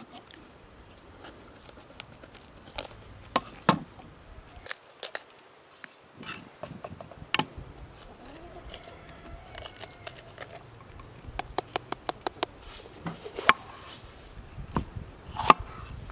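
Kitchen knife cutting bell peppers on a wooden cutting board: irregular sharp knocks of the blade hitting the board, with the crisp crunch of peppers being split and cored by hand.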